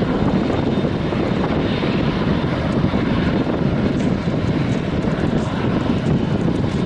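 Boeing 737-800's CFM56 jet engines running as the airliner rolls out along the runway after landing, a steady, deep, even noise.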